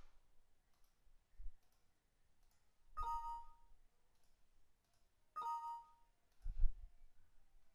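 Windows 7 system chime sounding twice, about two and a half seconds apart, as information message boxes pop up. Faint mouse clicks come between the chimes.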